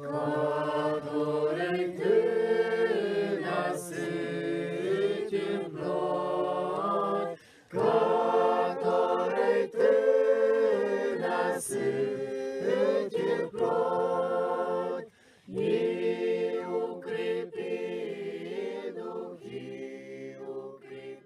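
A choir singing in long sustained phrases, with two short breaks between phrases about seven and a half and fifteen seconds in, growing quieter near the end.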